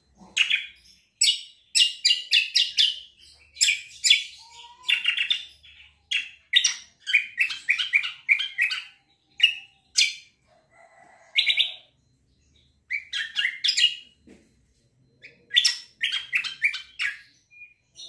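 Caged kecial kombo songbird singing in bursts of rapid, repeated chirping notes, broken by short pauses.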